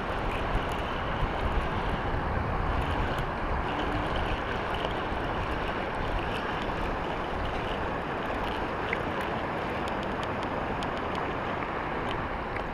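Steady rushing noise of wind buffeting the microphone and river water flowing over a rock ledge, with faint scattered clicks in the second half.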